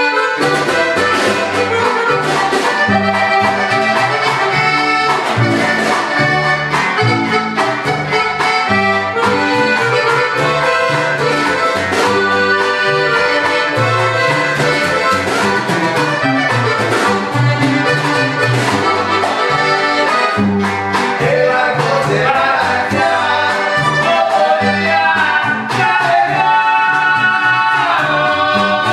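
Live regional Mexican band playing: a button accordion carries the melody over a plucked upright bass, a strummed acoustic guitar and a snare drum, in a steady, even rhythm.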